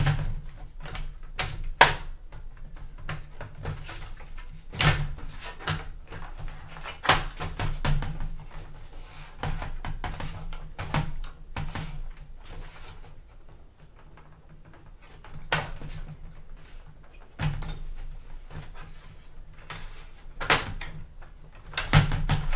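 Plastic Dell laptop palm rest being shifted and pressed against the chassis. It makes irregular clicks, taps and knocks as it is worked toward its clips and resists sliding into place.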